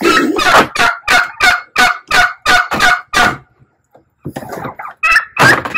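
Domestic turkeys calling: a rapid run of about ten short calls, roughly three a second, that stops about three seconds in.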